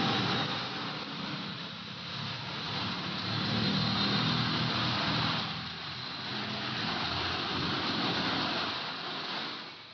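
City street traffic: vehicles passing, their engine rumble and tyre noise swelling and fading twice over a steady background hum.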